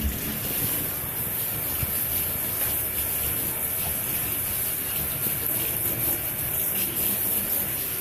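Water running steadily into a bathtub, a continuous rushing hiss.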